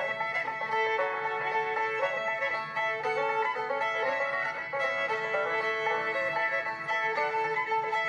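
Bluegrass banjo music with quick picked runs and a fiddle-like line over it.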